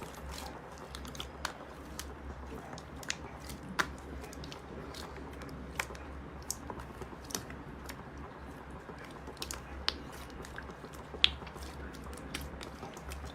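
Slime being handled and pressed, giving soft sticky squelches with scattered sharp clicks and crackles, the loudest about eleven seconds in, over a steady low hum.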